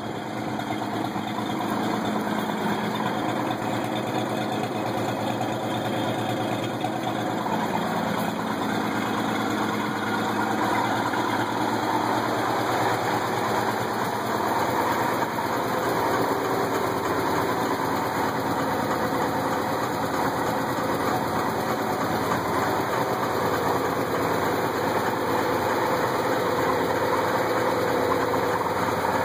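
1955 International R120 pickup's engine idling steadily, warming up after a cold start.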